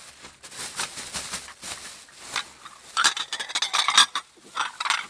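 Small china and glass objects clinking and rattling together with handling noise as knick-knacks are packed into a sack. The clinking grows busier and louder about halfway through.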